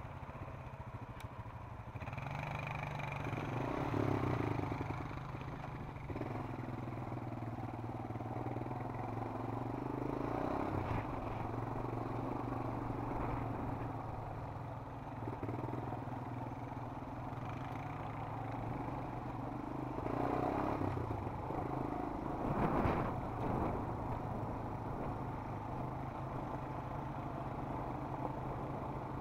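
Honda ATV's single-cylinder engine running at low trail speed, its note rising and falling with the throttle as the quad picks over rough dirt, with rattles and knocks from the machine over bumps, the sharpest about three quarters of the way through.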